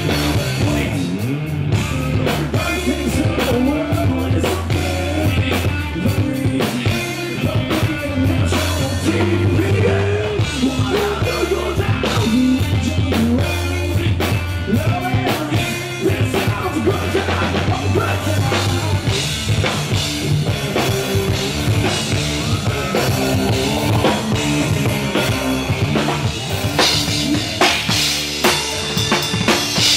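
Rock band playing live: drum kit, electric bass and electric guitar, with a male voice singing. The drums and cymbals come to the fore near the end.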